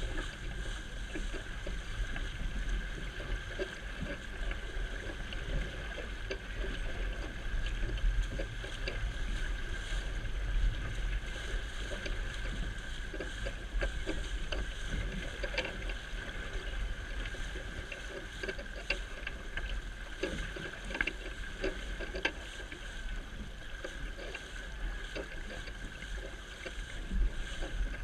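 Water rushing and splashing in the wake of a small sailboat under way, with wind rumbling on the microphone.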